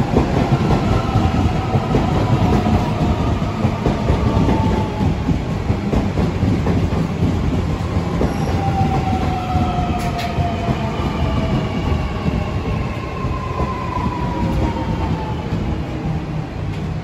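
Sydney Trains Millennium (M-set) double-deck electric train pulling in alongside and slowing. Its motors whine in several tones that fall steadily as it brakes, over a heavy rumble of wheels on the track that eases off near the end.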